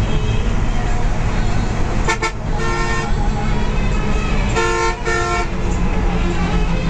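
Bus horn giving several short toots over the steady drone of the bus's engine and road noise inside the cab: a quick stutter about two seconds in, a toot just after, then two toots around five seconds.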